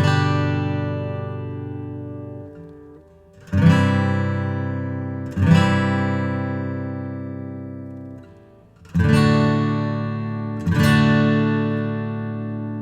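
Gibson J-200 Koa limited edition jumbo acoustic guitar, single strummed chords let ring: five strums, each sounding full and then slowly fading before the next.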